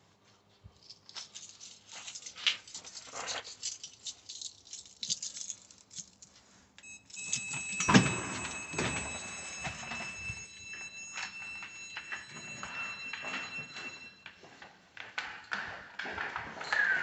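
Rattling and clicking of footsteps and a dog's harness and lead. About a third of the way in, a steady high electronic tone starts and holds for about seven seconds, with a loud thud a second after it begins.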